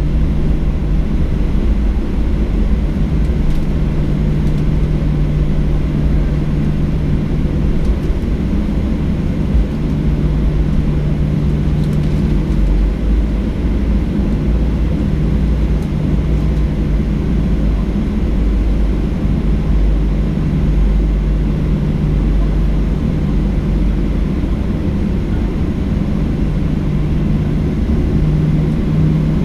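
Cabin noise inside a Boeing 737-800 taxiing at low power: a steady low rumble from its CFM56-7B engines with a constant low hum. The hum rises slightly in pitch near the end.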